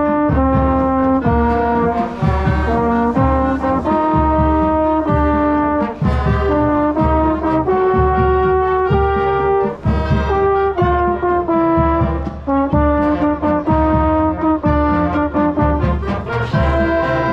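Marching band playing a tune: brass chords that change about every half second over steady drum beats, with a mellophone loud and close.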